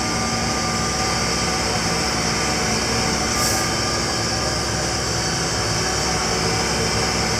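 Tractor engine running steadily, an even mechanical drone with a constant hum, while the repaired radial farm tire is run to test the patch, which is holding and in balance.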